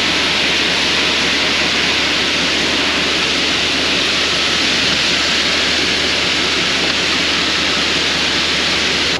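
Front-discharge concrete mixer truck pouring concrete down its chute into a footing: a loud, steady rushing of wet concrete sliding down the chute, with the truck's diesel engine humming underneath.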